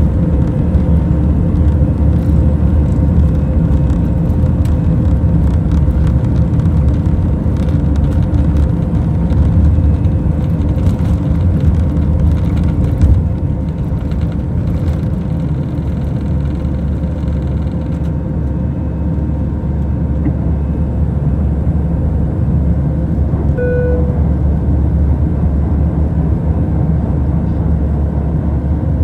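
Airbus A319 jet engines at takeoff thrust heard from the cabin, a loud steady rumble with rattling and knocking from the wheels on the runway. The rattling thins out and the noise eases a little past the middle as the airliner lifts off and climbs. A short beep sounds about three-quarters through.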